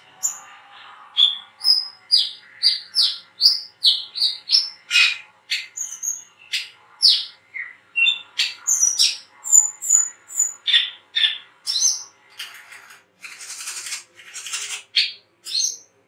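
Male brown-throated sunbird (kolibri kelapa, 'wiceh') singing in full 'ngriwik' style: a fast run of short, sharp, high chirps and sweeping whistled notes, about two a second, with two harsher, raspier bursts near the end.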